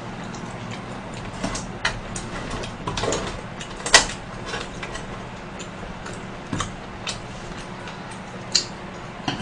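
Scattered clicks and taps of chopsticks working shrimp on an electric grill plate, along with eating noises, over a low steady hum. The sharpest click comes about four seconds in.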